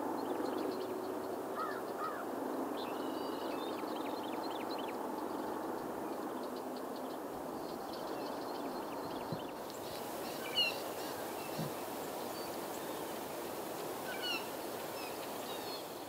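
Open-country ambience: a steady background hiss with scattered short bird chirps and calls, a few a little clearer in the second half.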